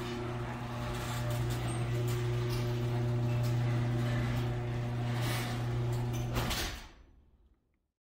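Sectional garage door closing on its motorized opener: a steady motor hum with the door's running noise. It ends in a thump about six and a half seconds in as the door shuts, then dies away.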